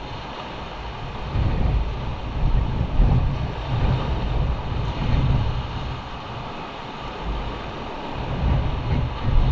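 Wind buffeting the microphone in uneven gusts, over the steady wash of surf breaking on rocks.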